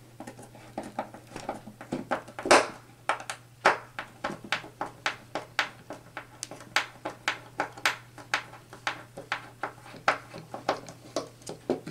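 Small DC gear motor running with a steady low hum, driven through a magnetic contactor. Over it, hands handling wires and components make irregular taps and clicks, a few a second, the loudest about two and a half seconds in.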